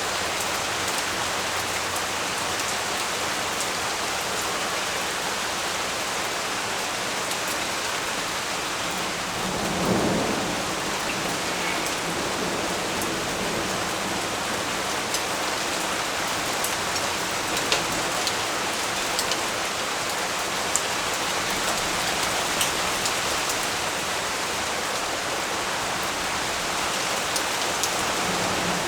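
Steady rain, with a short low rumble about ten seconds in and a few sharp ticks of drops scattered through the second half.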